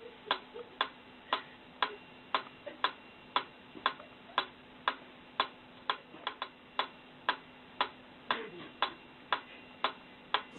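Mechanical pyramid metronome ticking at an even beat, just under two ticks a second.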